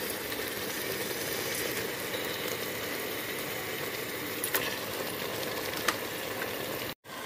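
Mutton pieces sizzling in hot fried masala in a pressure-cooker pot: a steady frying hiss with a couple of light clicks, breaking off briefly just before the end.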